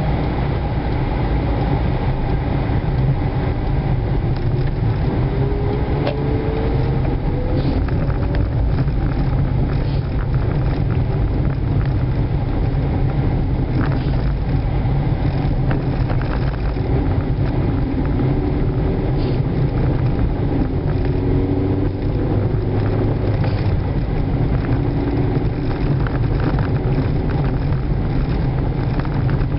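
Car driving, heard from inside the cabin: a steady low rumble of engine and road noise, with the engine note rising as the car speeds up about four to eight seconds in.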